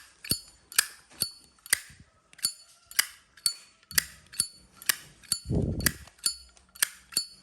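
1994 Zippo lighter's lid flipped open and snapped shut over and over: a sharp metallic clink about twice a second, each with a brief ringing tone. The lid's hinge is slightly loose, which the seller says gives it a nicer clink.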